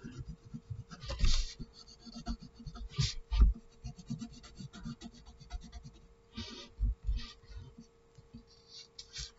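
Graphite pencil scratching on paper in irregular shading strokes, with a few louder scrapes and several low bumps from the hand and pencil pressing on the sheet.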